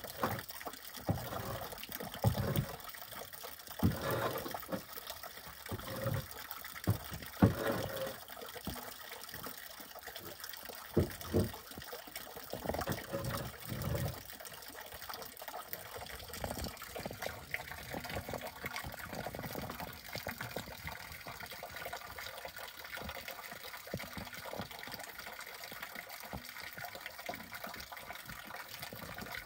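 A metal spade scraping and scooping manure and straw off a barn floor: a run of irregular scrapes and knocks through the first half, then only a steady rushing noise.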